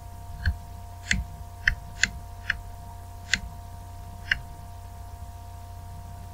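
Toggle switches on an RC radio transmitter being flipped: about seven sharp clicks, irregularly spaced, over the first four and a half seconds, with a steady electrical hum underneath.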